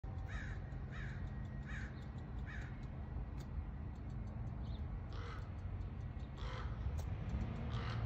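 Tree squirrel calling with short, repeated alarm barks. There are four evenly spaced calls in the first three seconds, then a few more further apart.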